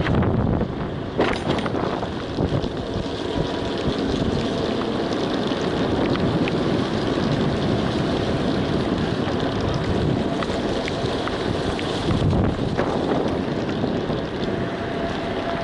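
Wind buffeting the microphone: a steady low rushing rumble with a few brief knocks.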